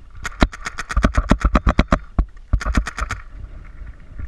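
DP G5 paintball marker firing rapidly, about eight shots a second: a string of about a dozen sharp pops, a short pause, then about six more. Wind rumbles on the microphone underneath.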